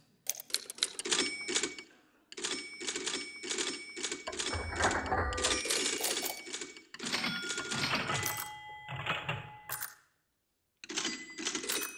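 Typewriter sounds played through electronics: volleys of rapid key clacks with ringing bell-like tones and some low thuds, breaking off briefly about two seconds in and again near the end.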